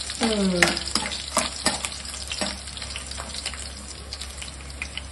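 Garlic cloves and dried red chillies frying in hot oil in a kadai for a tempering: a steady sizzle with scattered sharp crackles and pops, busiest in the first half.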